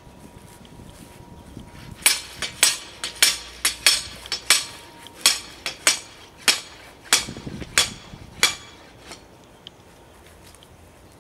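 About a dozen sharp, ringing metal-on-metal hammer blows, roughly two a second, driving a boring rod horizontally under a concrete sidewalk. They start about two seconds in and stop about two seconds before the end.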